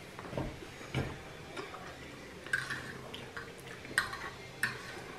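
A fork clicking and scraping against a plate while eating, heard as a series of soft, short ticks spread irregularly over a few seconds.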